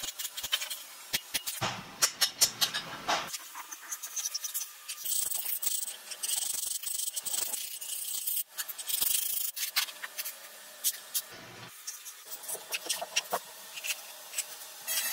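Quick runs of light metal taps and clicks for about the first three seconds, then rubbing, scraping and small clinks of metal parts as the governor cover is fitted to a Bosch P7100 inline injection pump. Near the end its screws are turned with a screwdriver.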